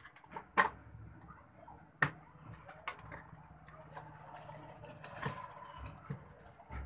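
Clicks and knocks of a TV's power-supply circuit board and its wiring being handled and lifted out of the chassis. Sharp clicks come about half a second in and about two seconds in, with lighter ones after.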